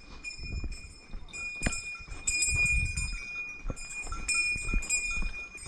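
A small hiker's bear bell jingling again and again with the walking, ringing tones struck over and over, over the thud of footsteps on a dirt trail.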